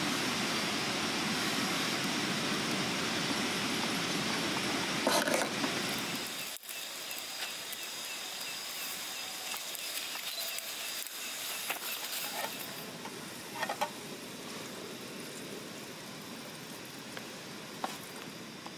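A steady rushing noise, cut off about six and a half seconds in. After it comes a quieter hiss with a few scattered sharp crackles from a burning wood campfire.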